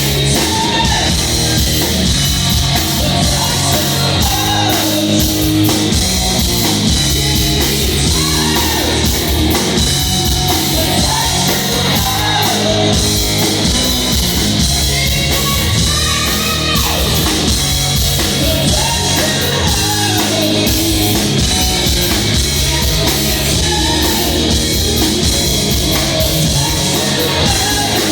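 Rock music with a singer, loud and steady throughout.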